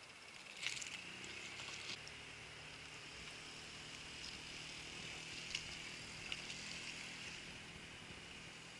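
Faint, steady hum of a distant motorboat's outboard engine, fading in about a second in. A few sharp clicks sound close by, the loudest about a second in.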